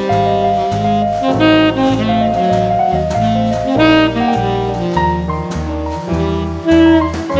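Background jazz music with a lead saxophone over a walking bass and a steady drum beat.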